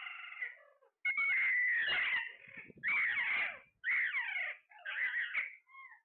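Alexandrine parakeets calling: about five bouts of wavering, pitch-sweeping calls, each around a second long, with the longest and loudest starting about a second in.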